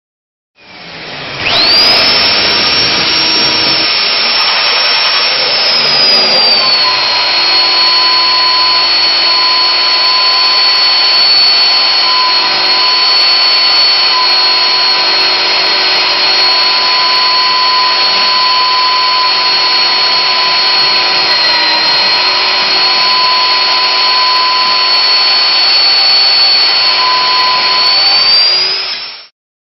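Nitto Kohki Atra Ace magnetic drill's motor soft-starting and driving an annular cutter through a steel beam under automatic feed. A high whine rises to speed, then drops slightly in pitch a few seconds in as the cutter bites and loads the motor, and runs steadily over the grinding of the cut. Near the end the pitch lifts slightly, and the sound stops abruptly as the drill shuts itself off on finishing the hole.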